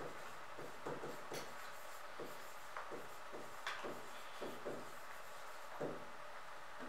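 Stylus writing on an interactive smart-board screen: faint, irregular little taps and scrapes as the words are hand-written.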